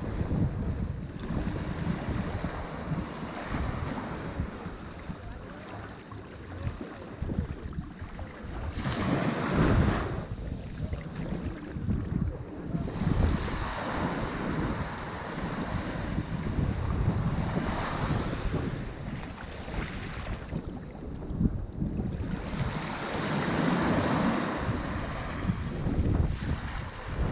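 Ocean surf breaking on a shore: a continuous wash of water noise that swells as a wave breaks every few seconds, the loudest about ten seconds in. Wind buffets the microphone.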